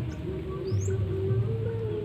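Birds chirping in short repeated calls over background music with a steady low bass line.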